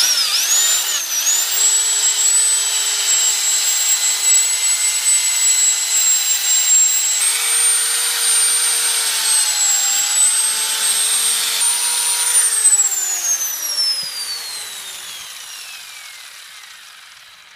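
Corded electric drill with a wire brush, running at speed as it scrubs old rubber out of a car's upper engine-mount bushing. The motor pitch rises and dips a little under load. About twelve seconds in, the drill is switched off and winds down with a falling whine.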